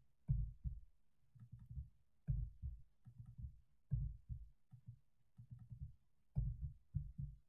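Computer keyboard being typed on in short bursts of keystrokes with pauses between. Each key press lands as a dull thud with a faint click.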